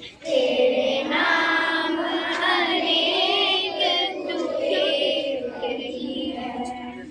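Children singing together, a held, wavering melodic line that dies away near the end.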